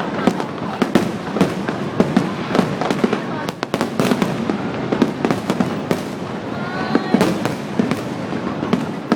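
Fireworks going off: irregular sharp bangs, a few each second, over a continuous rumble of more distant bursts.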